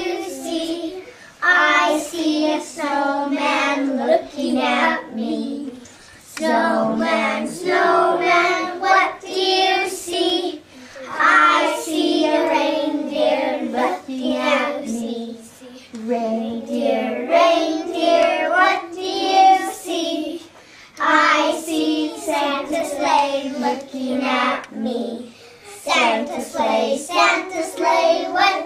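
A group of young children singing together unaccompanied, in sung phrases with brief pauses between them.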